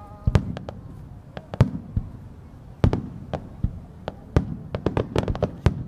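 Aerial firework shells bursting: sharp bangs and cracks at irregular intervals over a low, rolling rumble, with a quick run of closely spaced cracks near the end.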